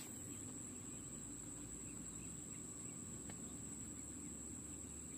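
Faint, steady, high-pitched insect trill held without a break, over a low outdoor hum, with a couple of faint ticks about three seconds in.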